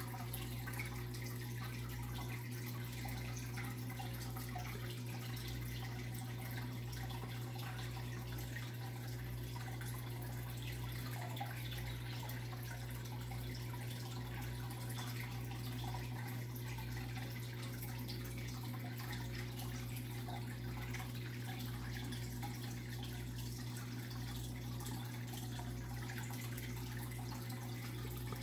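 Fish tank water bubbling and trickling steadily over a steady low hum from the tank's pump.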